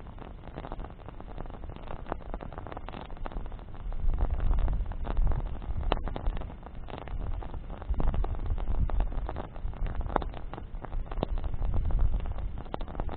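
Wood bonfire burning, crackling steadily with frequent sharp pops. From about four seconds in, gusts of wind rumble on the microphone.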